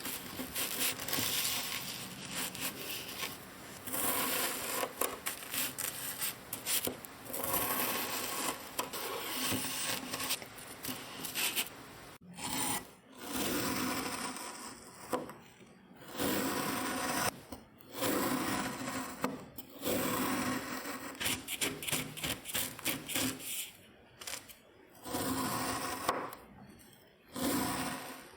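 Kinetic sand being cut and crushed: a run of noisy strokes, each a second or two long, with short gaps that grow longer in the second half.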